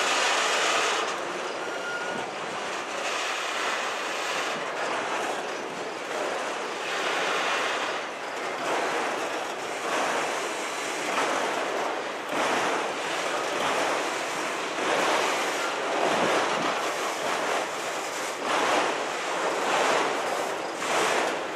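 Freight train of autorack cars rolling past, a steady rush of wheel and rail noise that swells and fades every second or two as the cars go by.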